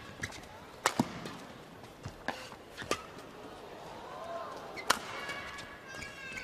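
Badminton rally: about five sharp cracks of rackets striking the shuttlecock, a second or two apart, with shoes squeaking on the court floor about two-thirds of the way through over a steady crowd hum.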